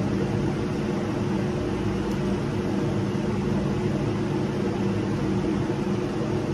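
Steady ventilation hum, a constant low drone with an even hiss over it that does not change.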